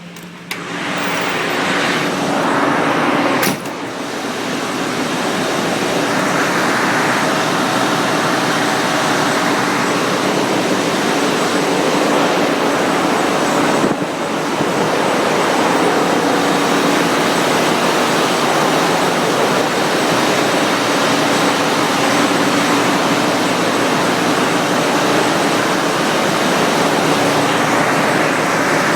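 Loud, steady roar of machinery in a bulk carrier's engine room, with a low hum running through it; it jumps up about half a second in.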